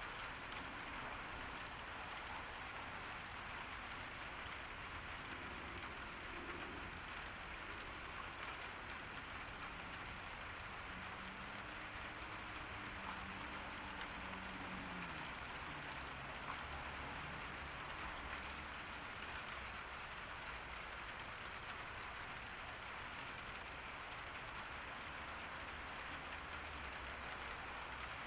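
Steady summer rain falling on a garden. A short, high chirp repeats every second or two and fades out about two-thirds of the way through.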